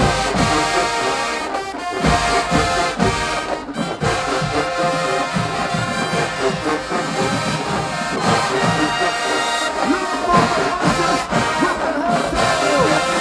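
High school show-style marching band playing, with a loud brass section over drums beating a steady rhythm.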